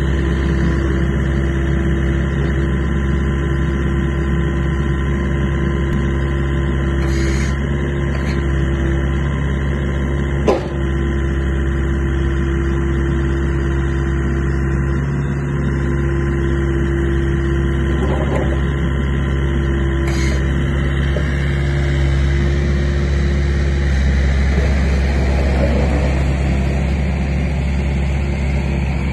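Volvo EC55C mini excavator's diesel engine running steadily as the arm and bucket work and the upper structure slews round. There is a single sharp knock about ten seconds in.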